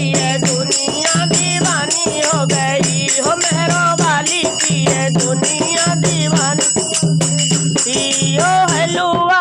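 Hindu devotional bhajan music with dholak drumming and jingling hand percussion under a wavering melody line, over a low drone that pulses about once a second.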